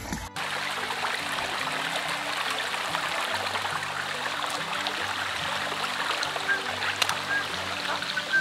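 Small stream running with a steady rush of water, under background music of held low notes. A few sharp ticks near the end.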